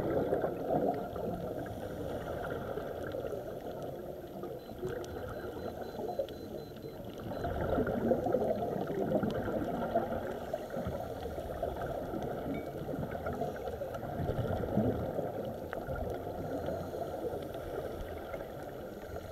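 Scuba divers' exhaled bubbles from their regulators, bubbling and gurgling, heard underwater and muffled. The bubbling swells louder for a few seconds near the middle.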